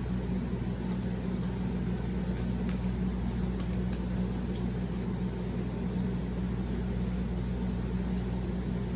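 A steady low mechanical hum from a room appliance, with scattered faint clicks of mouth sounds from someone chewing tough, rubbery sausage casing.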